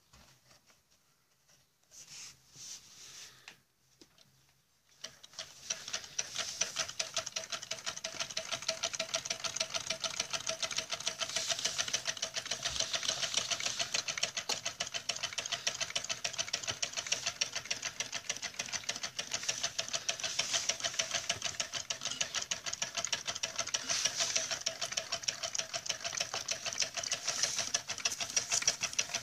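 Homemade Stirling engine running and driving its tin-can water pump, a rapid, even mechanical clatter that sets in about five seconds in and keeps a steady pace.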